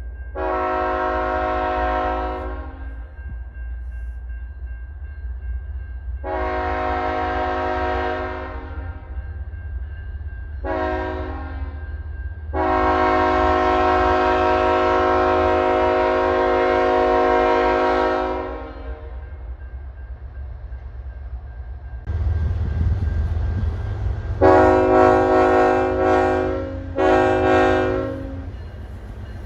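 Locomotive air horn sounding a chord in the long, long, short, long pattern of a grade-crossing warning, the final blast held for about six seconds, over the low rumble of the train. After a change of scene, a louder rumble follows and a horn sounds a few shorter blasts near the end.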